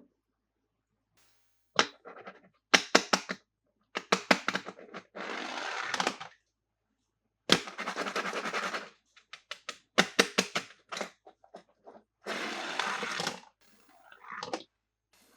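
Handling sounds from unboxing toy cars: clusters of sharp plastic clicks and cracks, broken by three stretches of about a second each of rustling or scraping, with short silences between.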